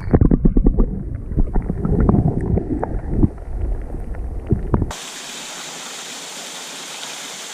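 Muffled sloshing and knocking of water, dull with the highs cut off as from a camera dipped under the surface, for about five seconds. It then cuts abruptly to the steady rush of a mountain stream.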